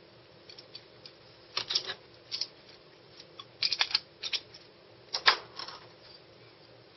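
Small metal parts and hand tools being handled at the workbench: a few short clusters of sharp clicks and clatters, about a second apart.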